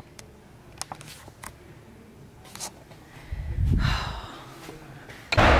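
Walking and camera-handling noise: a few faint clicks and knocks, a low thump about three and a half seconds in, and a short loud rush of noise near the end.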